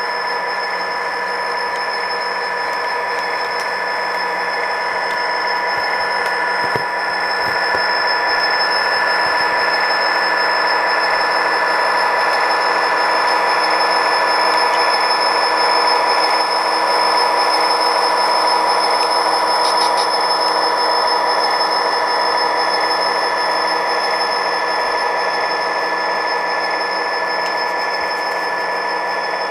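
HO-scale model freight train running past, a steady motor whine over the rolling noise of its wheels on the track. It grows a little louder as the locomotive passes closest, about halfway through.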